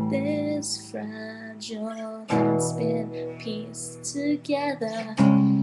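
Acoustic guitar strummed in slow, ringing chords, with a fresh chord struck about two seconds in and again near the end. A woman's singing voice wavers over it.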